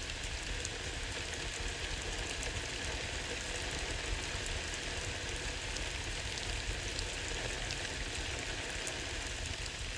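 Steady rain falling: a continuous hiss with scattered faint ticks of drops.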